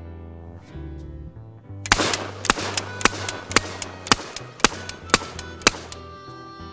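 Protecta (Street Sweeper) 12-gauge drum-fed shotgun firing a rapid string of about eight shots, roughly two a second, starting about two seconds in. Background music plays underneath.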